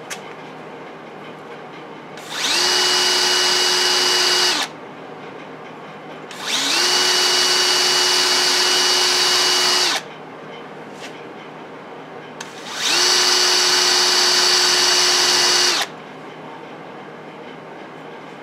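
Handheld electric drill spinning a red Scotch-Brite abrasive disc pressed onto a metal gauge panel to engine-turn a swirl pattern. It is run in three separate bursts of a few seconds each; every burst starts with a short rising whine, holds a steady pitch, then cuts off suddenly.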